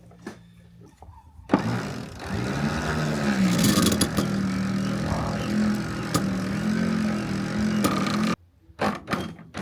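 Electric sailboat winch motor running under load, as when hoisting a person up the mast in a bosun's chair. It spins up with a rising pitch about a second and a half in, runs steadily with a slight waver, and cuts off suddenly near the end.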